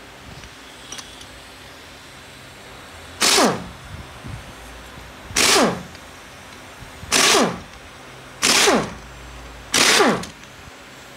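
Air ratchet run in five short bursts, each a hiss with a whine that falls in pitch as the tool spins down, backing out the oil pump bolts of a ZF 8HP eight-speed automatic transmission.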